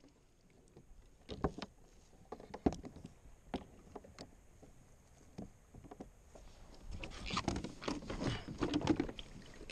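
Scattered knocks and handling noises on a kayak, growing into a busier run of clatter and rustling in the last few seconds.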